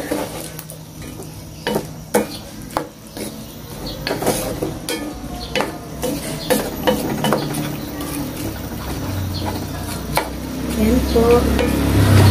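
Wooden spatula stirring chicken and pork pieces in a nonstick pot, with irregular knocks and scrapes against the pot over a light sizzle of the simmering adobo sauce. A low rumble builds near the end.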